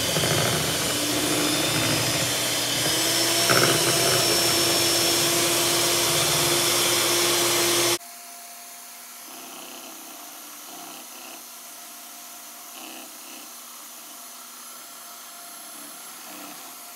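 Mondial electric hand mixer running, its beaters whipping a stiff, gelatin-set whipped cream filling in a metal bowl to break up the lumps and make it smooth. Its motor hum rises slightly in pitch about three seconds in, and the sound drops abruptly to a much quieter level about eight seconds in.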